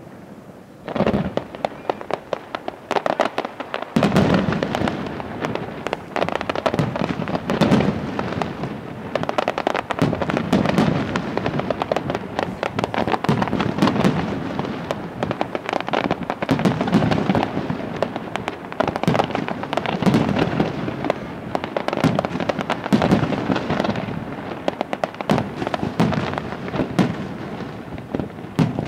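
Fireworks display: after a brief lull, a rapid, dense barrage of aerial shells bursting and popping begins about a second in and keeps going without a break.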